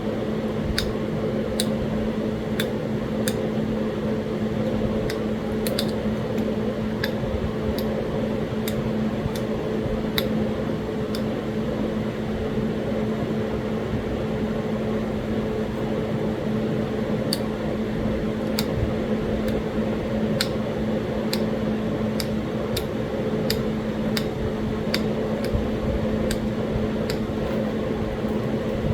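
Steady mechanical hum, like a fan, with scattered sharp clicks over it, often in small clusters, as Talahata quartzite is worked by a flintknapper. There is a quieter stretch with few clicks in the middle.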